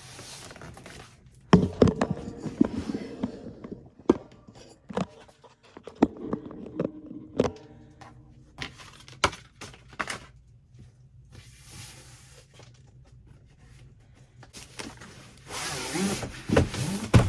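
A large cardboard box being rolled over and moved: scattered thuds and knocks, with cardboard rubbing and scraping, loudest near the end.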